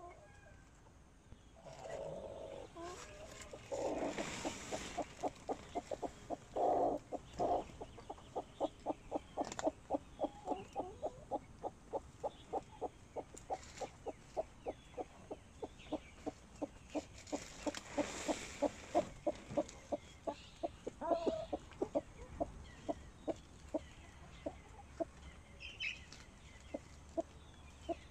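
Sanhuang hens clucking: a long, steady run of short clucks about three a second, broken by a few longer drawn-out calls. Two brief rustles stand out, about four seconds in and again past the middle.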